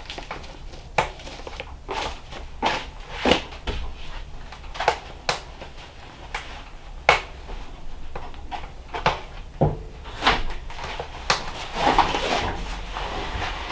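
Irregular knocks and clunks of hands and tools working on wood overhead from a ladder: about a dozen sharp strikes at uneven intervals.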